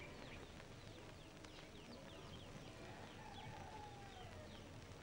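Faint birds chirping: many short, quick descending chirps scattered throughout, over a quiet background hiss, with one fainter, longer call about three seconds in.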